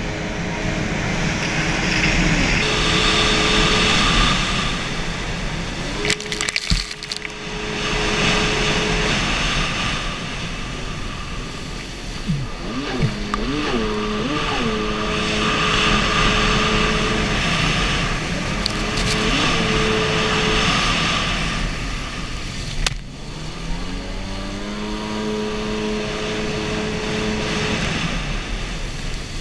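Stand-up jet ski engine running at speed over rushing water noise. Its pitch holds steady for stretches and rises and falls as the throttle changes, with a couple of sharp knocks.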